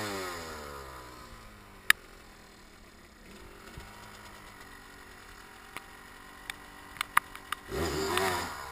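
Off-road motorcycle engine falling away from a rev, then running low with a few sharp clicks, and revved briefly again near the end.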